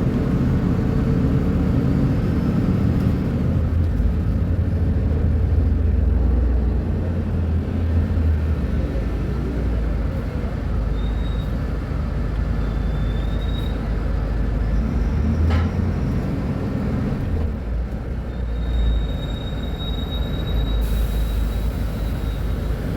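Mercedes-Benz O500U city bus engine running with its Voith automatic gearbox, a low rumble that swells and eases several times as it works. A faint high whistle comes and goes in the second half.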